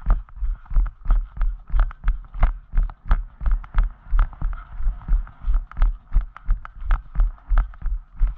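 Horse's hoofbeats at a steady gait, heard through a GoPro camera riding along with the rider: regular heavy low thuds about three a second, each with a sharp knock on top, over a faint steady hiss.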